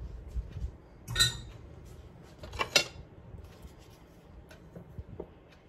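Kitchen utensils and dishes clinking and clattering on a counter: two sharp, ringing clatters, about a second in and again near three seconds, with lighter taps between and after.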